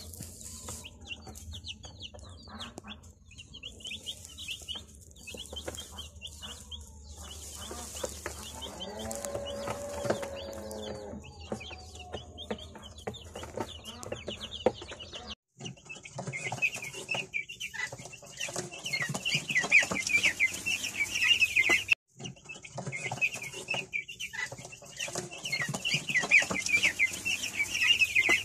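A flock of young white broiler chicks peeping: many rapid, high, overlapping chirps, louder in the later part. The sound cuts out briefly twice.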